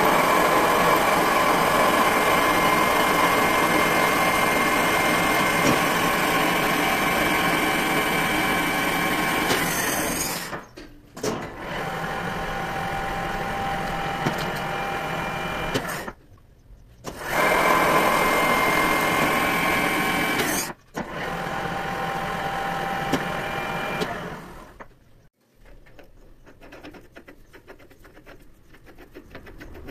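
Metal lathe running with a steady mechanical whir and a few steady tones. It stops and starts several times, alternating between louder and quieter stretches, and winds down about 25 seconds in.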